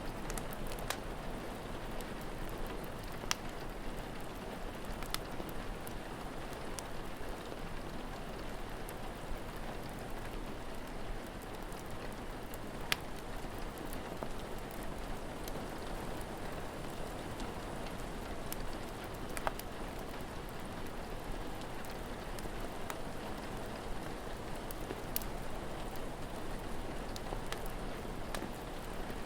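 Steady rain falling, with a log fire crackling: sharp single pops every few seconds.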